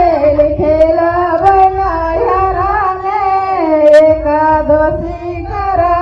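Adivasi Karma dance song: a high voice singing a melody of long held notes and short glides, over a low pulsing beat.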